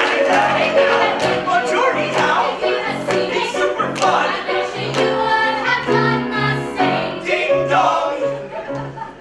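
Musical theatre cast singing together over accompaniment with a steady, repeating bass pattern, holding a chord about six seconds in; the music gets quieter near the end.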